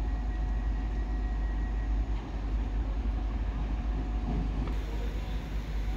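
Pt47 steam locomotive standing after arrival: a steady low rumble and hiss with no distinct beats or strokes.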